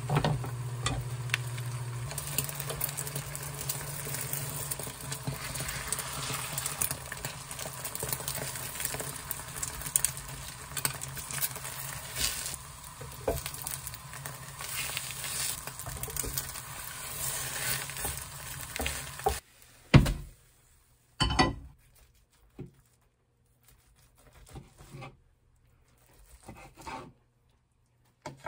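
Beaten egg sizzling gently in a nonstick frying pan on low heat, with light scrapes and taps as it is stirred with chopsticks and folded into a roll with a spatula. The sizzle cuts off about two-thirds of the way through, and a few separate soft knocks follow.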